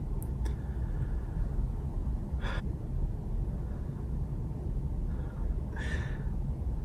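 A man's two short, sharp breaths in, about two and a half and six seconds in, as he holds back a sneeze, over a steady low room rumble.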